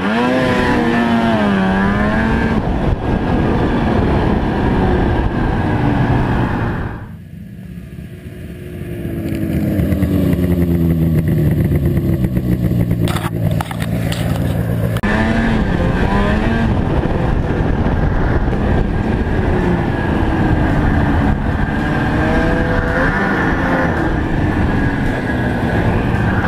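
1995 Ski-Doo Formula SS 670 snowmobile's two-stroke engine running under way, its pitch repeatedly rising and falling as the throttle is worked. About seven seconds in it briefly drops off, then climbs back up.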